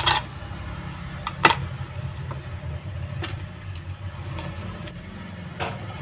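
A few sharp clicks and taps from a mobile phone's small parts being handled, the loudest about one and a half seconds in, over a steady low hum.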